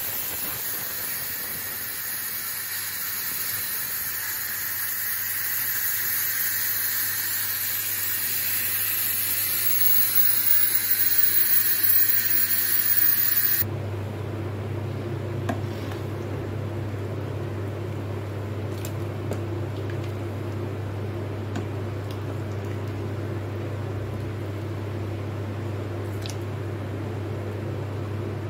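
Electric pressure cooker letting off steam through its release valve: a loud, steady hiss that cuts off suddenly about halfway through once the pressure is gone. After it, a low steady hum and a few faint clicks.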